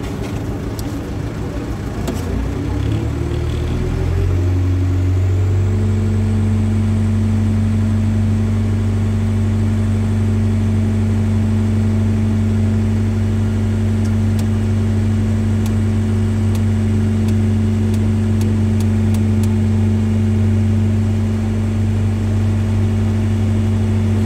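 Terex AC100 mobile crane's engine speeding up over the first few seconds, then held at a steady high rev while the crane hoists a counterweight slab.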